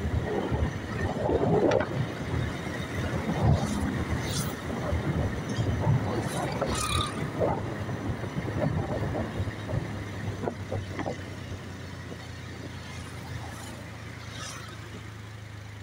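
Motorcycle running along the road, its engine mixed with wind rushing over the microphone. The rough wind noise eases in the second half, leaving a steady low hum.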